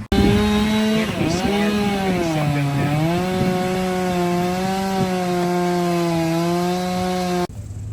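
Chainsaw running at high speed, its pitch sagging twice as it bogs into wood, then holding steady. It cuts in and out abruptly.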